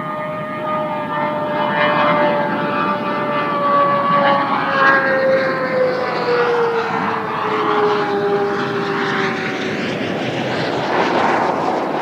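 KillaJoule electric sidecar streamliner running past at speed: its whine slides slowly down in pitch, and a rushing noise builds toward the end as it comes close.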